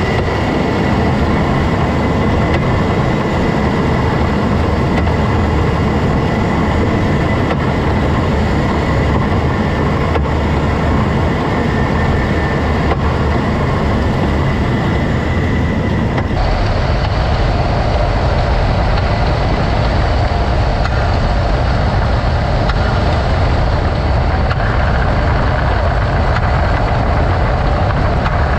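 2017 Jeep Cherokee KL in motion: steady vehicle running and road noise, its sound changing abruptly a little past halfway.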